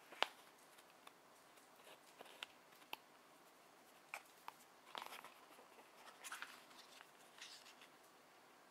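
Faint scattered clicks and light scrapes of a wooden toothpick and fingers working a thin plastic takoyaki candy tray, with the sharpest tap just after the start.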